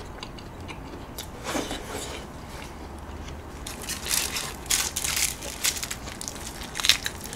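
Gloved hands picking up and pulling at a piece of roast chicken on a sheet of aluminium foil. It is quiet at first, then a run of crackling and crinkling starts about four seconds in.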